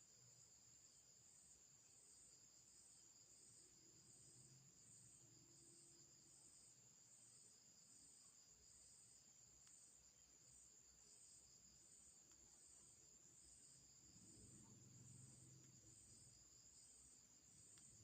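Near silence with faint, steady high-pitched chirring like night insects, pulsing about once a second.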